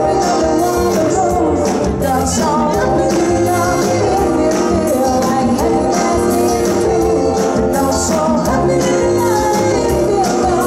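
Live band playing an amplified song with a singer.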